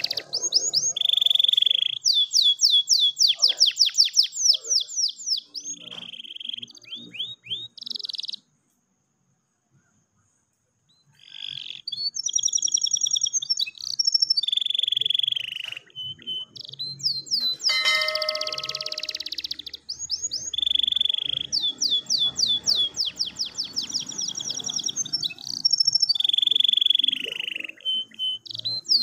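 Domestic canary singing a long, continuous song of fast trills, runs of repeated chirping notes and held buzzy notes. The song stops dead for about two seconds a third of the way in, then resumes.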